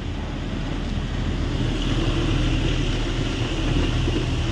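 Heavy diesel truck running and rolling slowly, heard from inside the cab as a steady low rumble, with a hiss that comes up about one and a half seconds in. The driver puts some of the noise down to the lift-axle tyres not lifting fully and running in contact with the ground.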